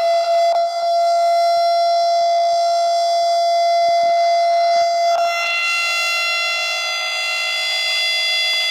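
Siren sounding a loud, steady held tone with a rich, buzzy edge, dropping a little in pitch about five seconds in.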